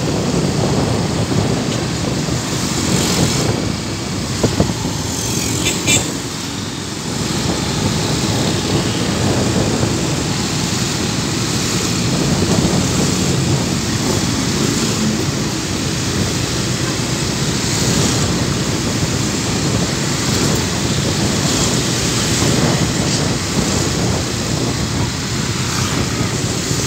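Steady road noise from riding a motorcycle through town traffic: engine and traffic mixed into one continuous rush. Two short sharp knocks come about four and a half and six seconds in.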